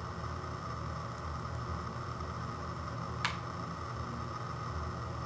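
Steady low hum and hiss of background noise, with a single sharp click about three seconds in.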